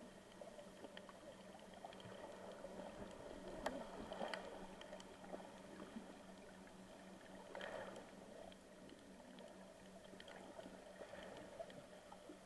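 Faint underwater ambience picked up by a snorkeler's camera below the surface: a low steady hum and scattered small clicks over a quiet wash of water noise. The water noise swells louder twice, about four and eight seconds in.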